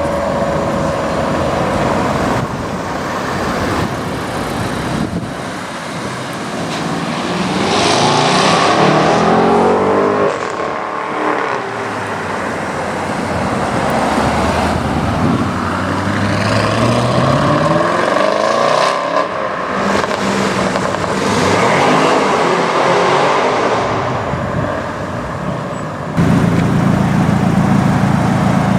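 Audi RS6 cars accelerating hard away one after another, each engine note sweeping up through the revs as the car pulls past. About 26 seconds in, the sound changes abruptly to a louder, steady engine note.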